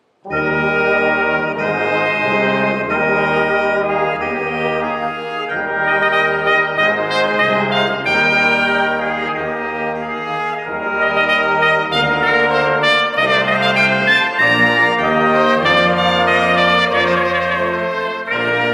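Small brass ensemble with clarinet (trumpets, French horn, trombone, tuba) playing a Christmas piece in sustained chords over a tuba bass line. The music starts suddenly at the beginning.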